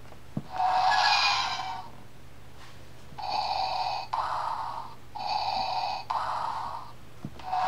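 A button click on a children's Star Wars sound book, then its small speaker plays a hissing mechanical breathing effect, Darth Vader's respirator: one long hiss, then two in-and-out breaths. A second button click comes near the end.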